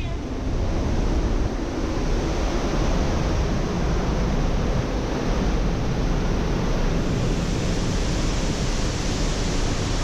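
Pailón del Diablo waterfall close by: a loud, steady rush of falling water with no breaks.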